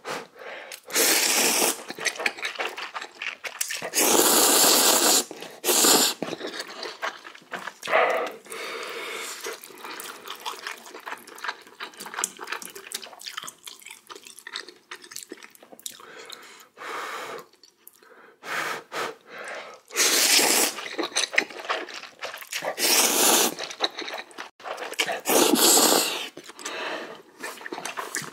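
A man slurping spicy instant ramen noodles, about seven loud wet slurps of a second or two each, with chewing between.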